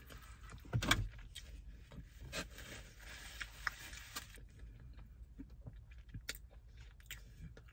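Quiet handling of takeout food: a paper sandwich wrapper rustling, with small clicks and rubs and a louder knock about a second in.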